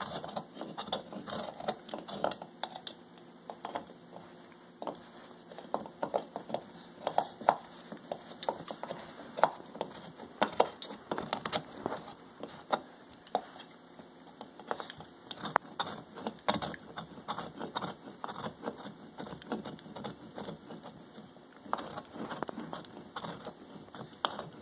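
Pit bull gnawing a hard chew bone: irregular clicks and crunches of teeth biting and scraping on it.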